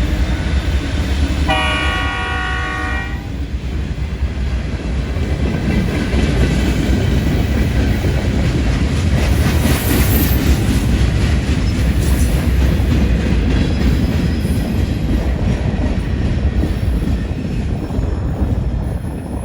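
Train passing close by with a loud, steady rumble of wheels on rail. A locomotive air horn sounds one blast of under two seconds about a second and a half in.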